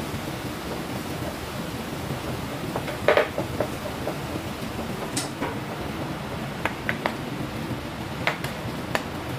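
Commercial kitchen clatter: a steady rushing background noise with scattered clinks and knocks of pots, dishes and utensils, the loudest clatter about three seconds in.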